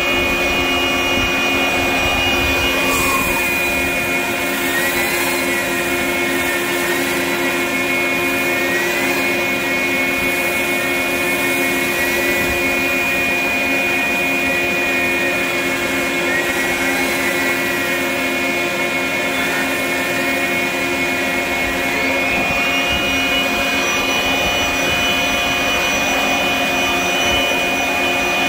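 Electric 9-inch dustless drywall sander running on low speed with 60-grit paper against a boat's bottom paint, its hose drawing through a shop vacuum that runs steadily. The sander's whine drops in pitch about three seconds in and wavers while the pad works the hull, then climbs back near the end.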